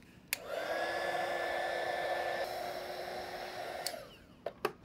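Handheld heat gun switched on with a click, its fan spinning up with a faint rising whine and then running steadily for about three and a half seconds before stopping, as it shrinks heat-shrink tubing over soldered XT30 connector wires. A few small handling clicks follow near the end.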